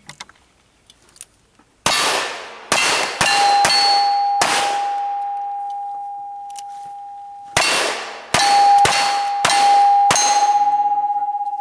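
Two strings of five rapid pistol shots, about three seconds apart, from single-action revolvers fired at steel targets. Each hit clangs, and one plate keeps ringing in a long, steady tone between and after the shots.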